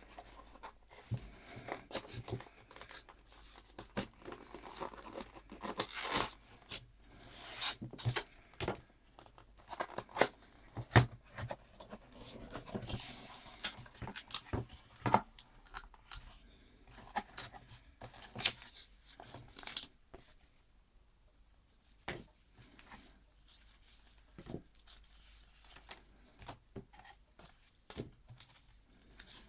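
Cardboard box and paper inserts being handled while unboxing: irregular scraping, tapping and rustling of cardboard and paper, busy and fairly loud for the first twenty seconds or so, then sparser and quieter.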